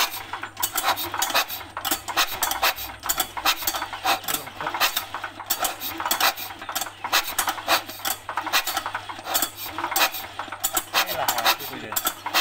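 Fast, irregular metallic clicking from a cultivator's single-cylinder diesel engine being turned over without running while its fuel injector is tested for spray, the injection pump pushing fuel through.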